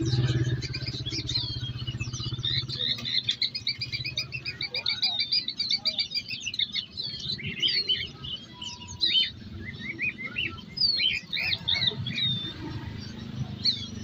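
Many small caged songbirds chirping and twittering together, a dense run of short overlapping chirps and whistles, over a low steady hum.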